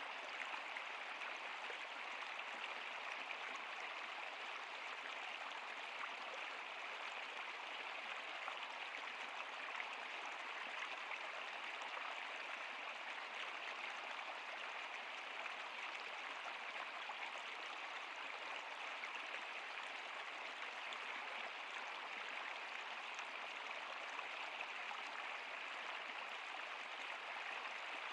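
Steady rushing and babbling of a flowing stream, even throughout with no breaks.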